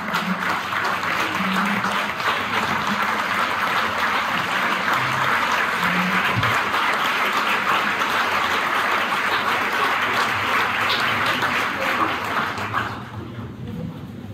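Audience applauding: a dense, steady clapping of many hands that dies away near the end.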